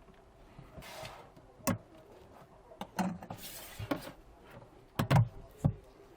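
Tablet disassembly on a workbench: scattered sharp clicks and knocks of tools and parts being handled, with a couple of short scraping sounds. The loudest knocks come just after five seconds in.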